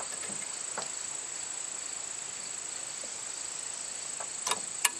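Steady high-pitched insect chorus, with two sharp clicks near the end from hydraulic quick-connect couplers being worked loose on a tractor's front loader.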